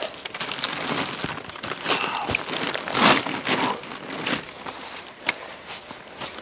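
Close rustling and crinkling of clothing, gloves and gear being handled as a man kneels down, with a sharp click at the start and another about five seconds in.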